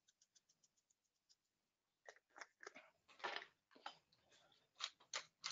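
Hand-twisted salt and pepper mill grinding over the pot: faint quick clicks at first, then louder crunchy grinding strokes from about two seconds in, falling into a regular ticking rhythm near the end.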